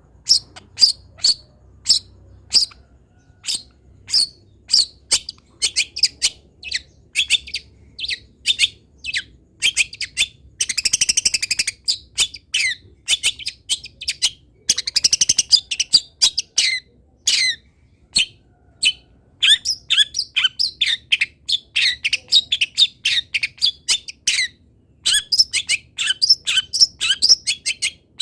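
Long-tailed shrike (cendet) calling: a long run of short, sharp high chirps, about one or two a second at first and quicker later, broken twice by a rapid rattling trill. This is a masteran recording, played to train captive shrikes to copy the song.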